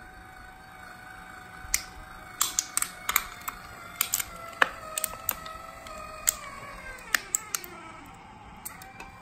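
Linear actuator motor whining steadily as it drives a wooden pusher plate into an aluminium drink can, with a dozen or so sharp crackles and pops as the can crumples. The whine sinks in pitch between about five and eight seconds in.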